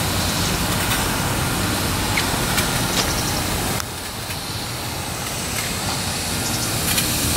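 Clishay live steam logging locomotive standing under steam with its stack blower on: a steady hiss of steam and air drawn through the fire, easing slightly about four seconds in, with a few faint clicks.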